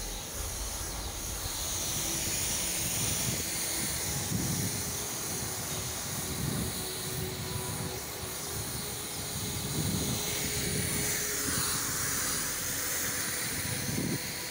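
Pressure washer running, its jet spraying water onto wet paving: a steady hiss of spray over the machine's hum. About two-thirds of the way through, the hiss dips lower and rises again.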